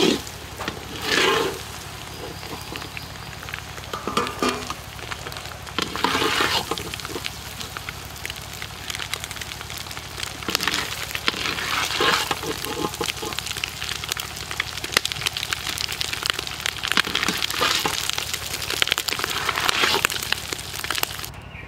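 Food frying and sizzling in a large iron kadai, with a metal ladle stirring and scraping against the pan in bursts every few seconds.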